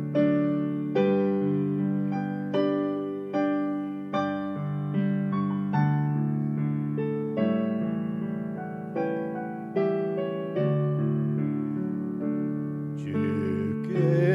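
Piano accompaniment playing the instrumental interlude of a slow gospel song between verses: a gentle melody over chords, each note struck and left to fade, a new note coming about once or twice a second.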